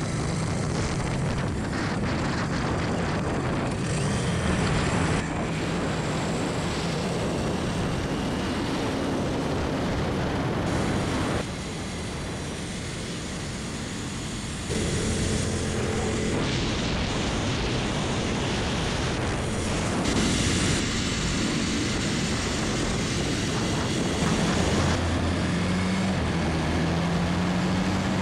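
Royal Enfield Continental GT650's 648 cc parallel-twin running at highway speed under heavy wind rush on the bike-mounted camera. The sound shifts abruptly at several cuts between riding shots, and near the end the engine's pitch steps up.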